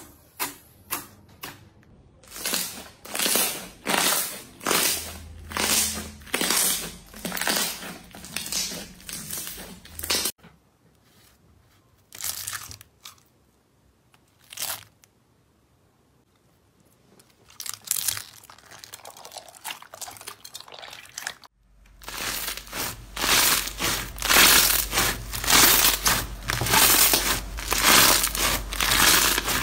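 Slime handled by hand: fingers pressing into glossy slime give squelchy pops about two to three a second. After that comes a quieter stretch with a few single pops and some light crackling as slime is worked through foam beads. Near the end, slime squeezed and kneaded in the hands gives dense, louder crackling.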